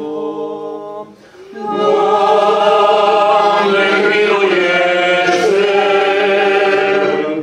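Orthodox liturgical chant: a single voice intones briefly, then, after a short pause, a group of voices sings a long sustained response.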